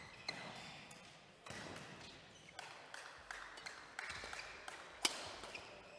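Badminton rackets striking a shuttlecock in a fast doubles rally: a string of sharp hits, one every half second to a second, the hardest about five seconds in, echoing in a large sports hall. Short shoe squeaks on the court floor are heard between the hits.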